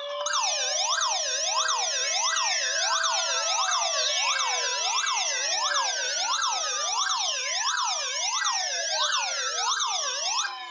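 Several electronic emergency-vehicle sirens sounding over one another: a fast yelp rising and falling about twice a second, layered with slower wailing sweeps that glide downward. The loudest layer cuts off near the end, leaving fainter falling wails.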